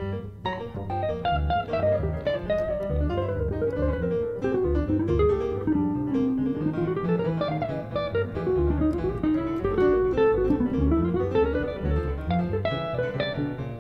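Jazz guitar playing a single-note solo line that climbs and falls, over a moving bass line.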